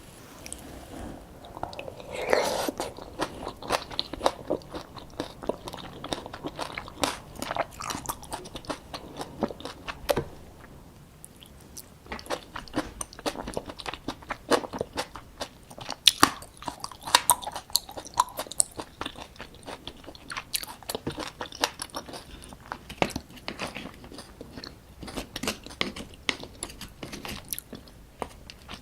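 Close-miked eating of soy-sauce-marinated raw crab (ganjang gejang): biting and chewing with many sharp crunching cracks, which ease off briefly about eleven seconds in.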